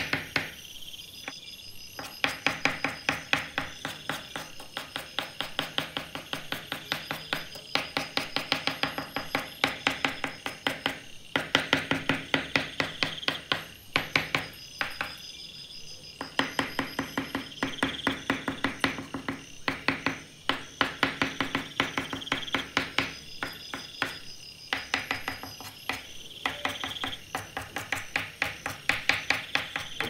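Soft pastel stick scratching on sandpaper in quick, short hatching strokes, several a second, broken by a few brief pauses.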